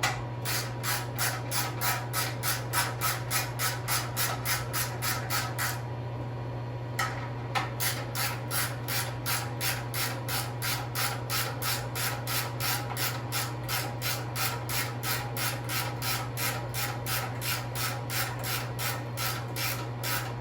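Hand ratchet clicking steadily, about three to four clicks a second, as a bolt on the intercooler bracket is run down. The clicking stops for about a second some six seconds in, then carries on.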